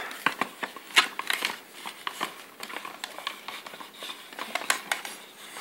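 Scattered plastic clicks and knocks as the lid and motor head of a small electric food chopper are fitted onto its jar; the motor is not running.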